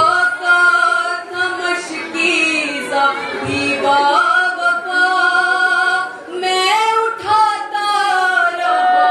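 A woman singing a nauha, a Shia lament, unaccompanied into a microphone. She draws out long held notes that slide from one pitch to the next.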